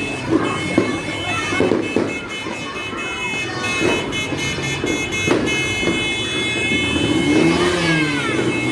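New Year's Eve neighbourhood noise: a steady high-pitched tone sounds throughout, over a scatter of sharp firecracker cracks that come in a quick run about four to five seconds in, with people's voices mixed in.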